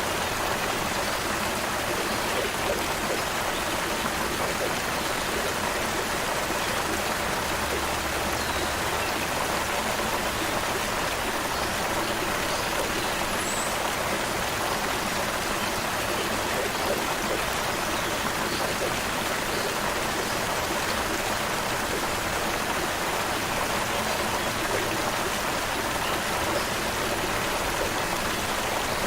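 Creek water flowing in a steady, continuous rush, with a few faint bird chirps here and there.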